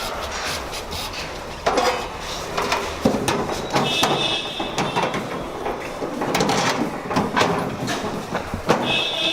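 Irregular knocks, clatter and scraping of an air cooler's fan motor being handled and fitted into the cooler body, with a few short high squeaks.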